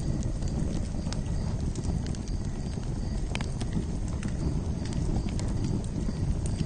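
Campfire crackling: a steady low rush of burning with irregular sharp pops and snaps scattered through it.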